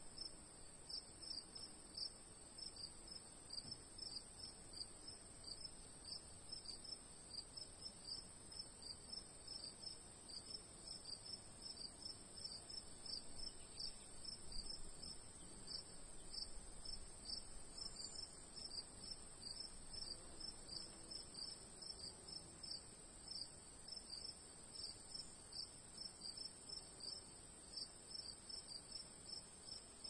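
Crickets chirping quietly: a continuous high trill over a lower chirp that pulses a few times a second.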